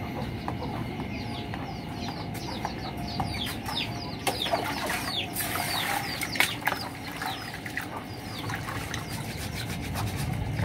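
Birds chirping: many short calls that fall in pitch, thickest in the middle, over a steady low background noise. A brief rush of noise comes about five seconds in.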